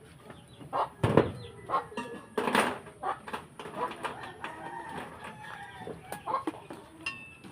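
Backyard chickens clucking in short, irregular calls, with a sharp knock about a second in.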